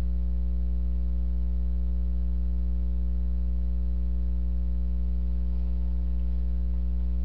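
Steady electrical mains hum, a low buzz with a stack of higher overtones, unchanging throughout.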